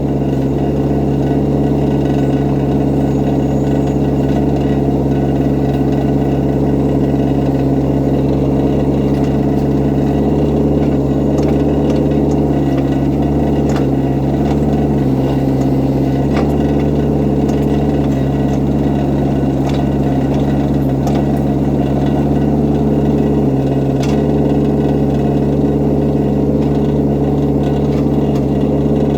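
Excavator's diesel engine running steadily and loudly, its note dipping briefly twice as it takes load, with a few faint clicks and knocks over it.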